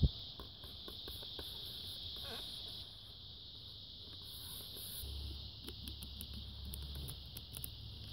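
Steady high-pitched chirring of insects in the background, with a sharp knock right at the start and a few faint clicks.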